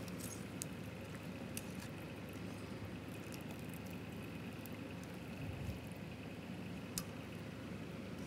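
Faint splashing of cooking water and light knocks of a wooden spoon against a pot as Chinese broccoli is lifted out, with one sharper click about seven seconds in.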